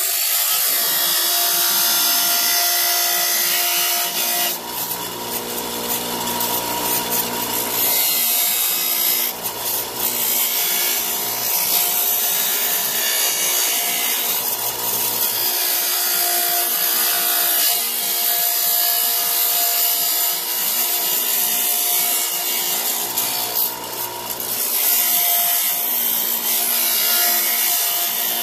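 Bench grinder running with a polycarbonate mirror sheet pressed against its wheel, grinding the plastic edge to shape. The rasping grinding noise varies in strength over the motor's steady hum.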